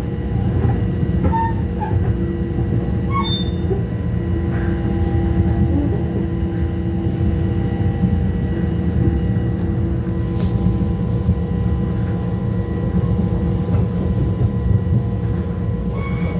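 Long Island Rail Road commuter train running along the tracks, heard from inside the passenger car: a steady low rumble of wheels and running gear with a faint steady hum over it.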